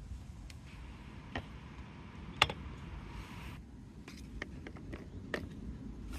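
Plastic marble-run pieces being handled and set down: a few sharp separate clicks and knocks of plastic stand blocks and curved track, the loudest about two and a half seconds in, over a low steady rumble.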